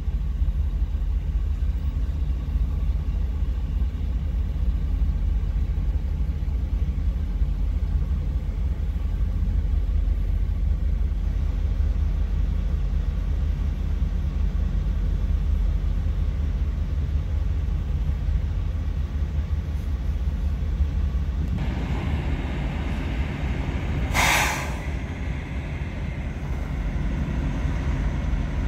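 Heavy diesel semi truck idling with a steady low rumble. Near the end comes one short, sharp hiss of air, typical of a truck's air brakes releasing.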